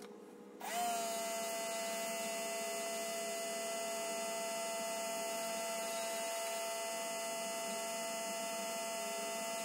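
Electric motor whining steadily at one pitch: it spins up about a second in and winds down at the end.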